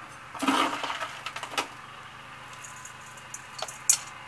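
Spoon scooping gritty potting mix of horticultural grit, sharp sand and small pebbles and tipping it into a small pot: a scraping rustle about half a second in, then scattered light clicks of stones, with a sharper click near the end.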